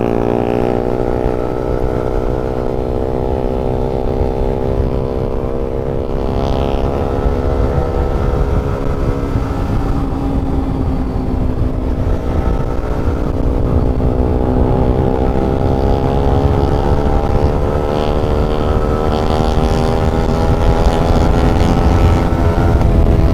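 Motorcycle engine running steadily under way, its pitch sagging slightly midway and then climbing slowly near the end as the bike speeds up, over a constant low rumble.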